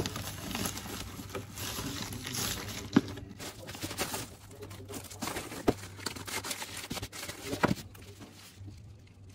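Paper and plastic shipping envelopes crinkling and rustling as they are handled, folded and sealed by hand, with a few sharper taps among the rustle.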